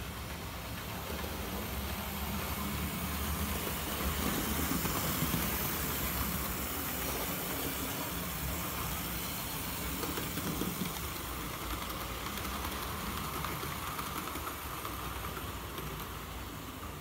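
Hornby OO gauge Class 91 model locomotive running on the layout's track, hauling coaches: a steady electric-motor whir with wheels rolling on the rails, a little louder around the middle as it passes close.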